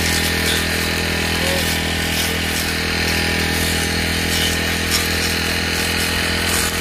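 Brush cutter's small engine running steadily at low throttle while cutting grass.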